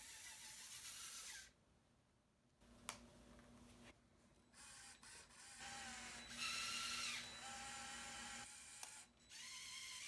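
Small electric motors of a Lego skid steer whining faintly in several short runs that start and stop, shifting in pitch as its tracks drive and turn it. One sharp click about three seconds in.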